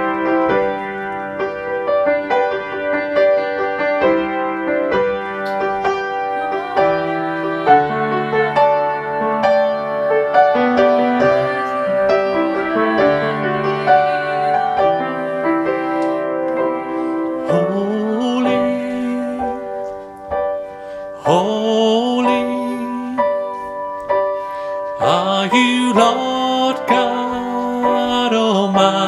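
Piano playing a slow worship song with sustained chords. In the second half a singing voice joins, sliding up into its notes.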